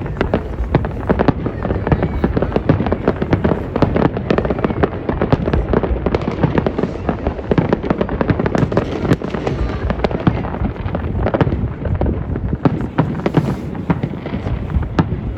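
New Year fireworks going off in rapid succession: a dense, continuous crackle of bangs and pops, many a second, over a steady low rumble of explosions.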